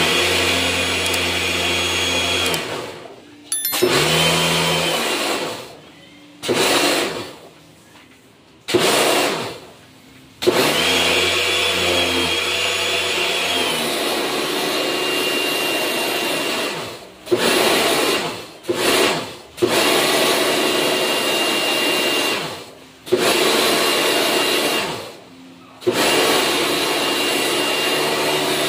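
Portable pressure washer running in about ten bursts of one to six seconds, starting and stopping abruptly as its trigger is pulled and released, with a steady motor whine over the hiss of the water jet spraying the split air-conditioner's indoor coil.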